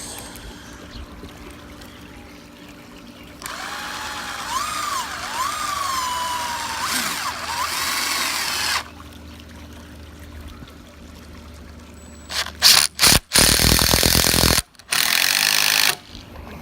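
Power drill driving a screw into deck railing: a run of motor whine that rises and falls in pitch for about five seconds as the trigger is worked. Near the end come several loud, short bursts of harsh noise.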